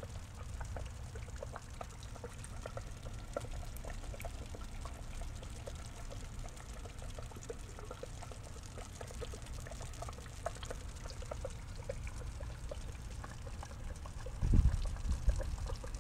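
Water trickling and dripping into a small pond: a steady run of small drips over a low rumble. A dull thump about fourteen and a half seconds in.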